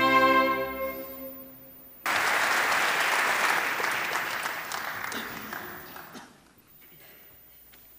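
A symphony orchestra's final chord dies away, then the concert-hall audience breaks into applause about two seconds in; the clapping fades out after about four seconds, leaving quiet room tone.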